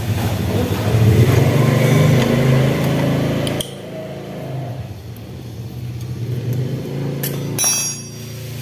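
A low, engine-like rumble, loud for the first three and a half seconds, then dropping abruptly to a lower level and carrying on. A brief rapid metallic rattle comes near the end.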